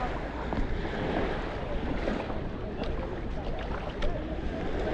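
Sea surf washing on the shore with wind buffeting the microphone, and people talking faintly.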